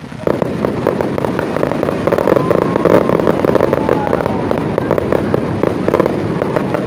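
Fireworks crackling: a dense, rapid run of many small pops starts suddenly just after the beginning and keeps going without a break.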